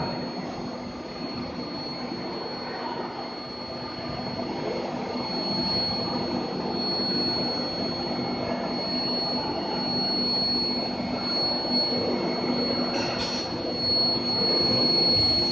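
Torsion bar induction heating furnace line running: a steady machine noise with a constant high-pitched whine and a low hum beneath it.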